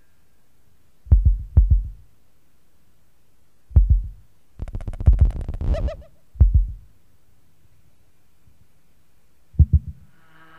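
Noise music from a cassette: deep, heavy thuds, mostly in pairs, a few seconds apart with quiet between. A burst of rapid crackling clicks lasts about a second and a half near the middle.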